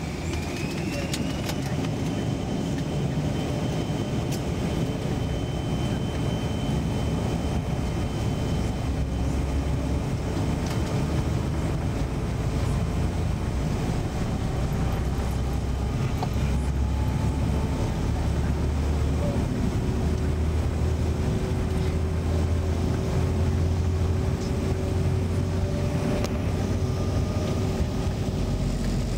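Cabin noise of a Bombardier CRJ900 at high power on the runway: the rear-mounted turbofan engines whine, the whine rising in pitch about a second in and then holding steady, over a loud, steady low rumble that grows slightly louder.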